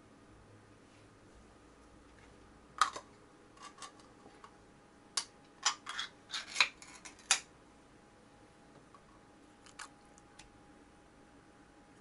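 Sharp metallic clicks and scrapes of a tin cat food can being opened and turned out into a ceramic bowl, several close together in the middle of the stretch, then a few fainter taps near the end as the upturned can is pressed down.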